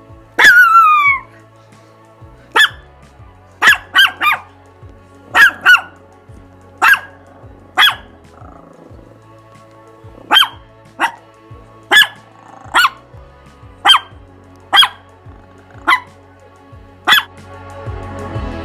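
Long-haired Chihuahua barking: a drawn-out falling yelp about half a second in, then a run of short, sharp, high barks, single or in quick pairs, roughly one every second.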